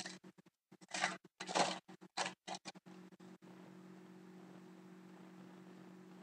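Foil trading card pack being torn open and crinkled in a few quick rustling bursts during the first three seconds, then only a steady low hum.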